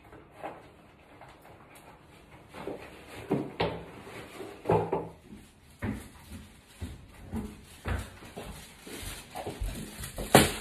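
A run of irregular knocks, thumps and footsteps, then a plastic carrier bag with pizza boxes inside rustling, with the loudest thump near the end as it is set down on the table.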